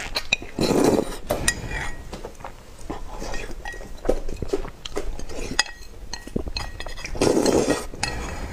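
Mukbang eating sounds: noodles slurped and chewed, with wooden chopsticks clicking and clinking against a porcelain bowl. The slurping is loudest about a second in and again near the end.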